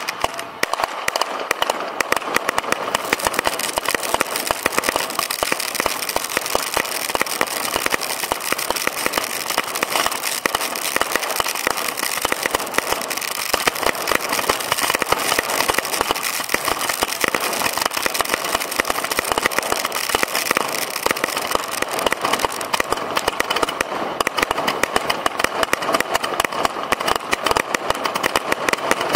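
Fireworks firing at close range from the launch site: a dense, continuous stream of rapid launch pops from multi-shot cakes and comets, with no gap.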